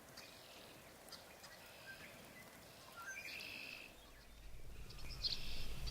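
Small songbirds chirping and trilling at a distance. A low rumble comes in about four seconds in and grows louder.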